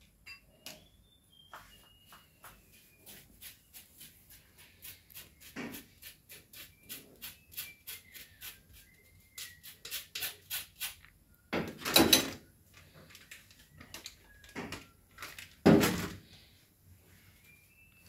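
A spoon tapping and scraping inside a plastic-rimmed mesh sieve while icing sugar is sifted to break up lumps: a run of quick light ticks, about two or three a second, followed by two louder knocks a few seconds apart near the end.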